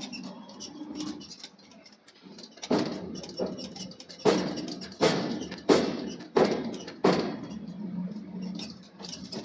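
Forging hammer striking hot steel: seven heavy blows in an even rhythm, about one every 0.7 seconds, starting a few seconds in, over a steady low hum of shop machinery.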